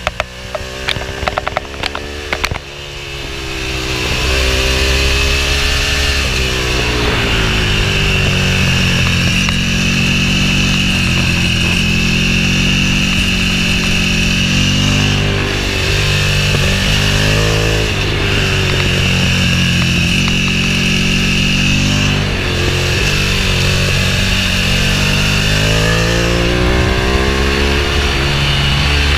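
Ducati Streetfighter 1098's L-twin engine heard from the rider's seat: crackling and popping at low revs for the first couple of seconds, then accelerating hard, the revs climbing and dropping through several gear changes.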